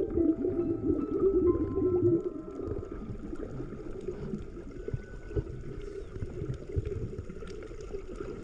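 Water gurgling and sloshing, loudest in the first two seconds and then steadier and quieter, with a few faint held musical tones.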